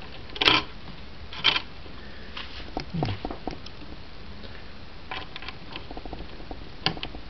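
Hands handling a CPU cooler's metal mounting clip and bracket on the motherboard: light clicks, taps and scrapes of metal and plastic. Two short, louder rustles come about a second apart near the start.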